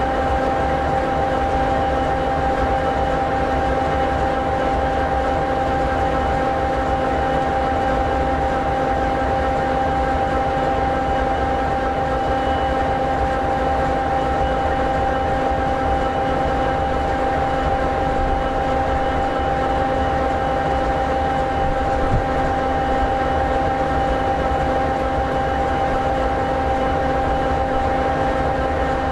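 EMD 16-710G3B sixteen-cylinder two-stroke turbocharged diesel of an SD60E locomotive idling steadily: an even low rumble with a constant whine of several steady tones over it.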